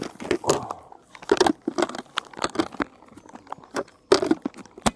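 Handling noise from a cordless stick vacuum and its packaging: an irregular string of plastic clicks and knocks, with crinkling of packaging between them.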